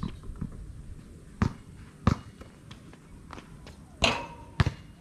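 Basketball bouncing on a concrete court: four sharp bounces, in two pairs a little over half a second apart, the loudest about four seconds in.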